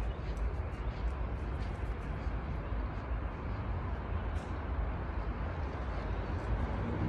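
Steady low outdoor rumble with faint scattered ticks.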